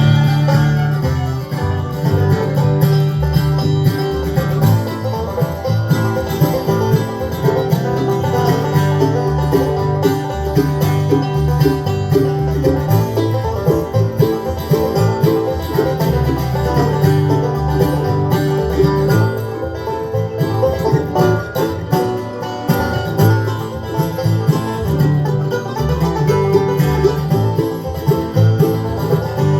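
Bluegrass band playing an instrumental break on acoustic instruments, with banjo picking prominent over guitar.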